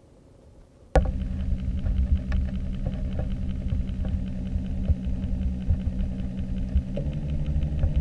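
Electric trolling motor running, recorded underwater near its spinning propeller: a steady hum with a fast, even ticking whir. It starts abruptly about a second in and changes tone about seven seconds in.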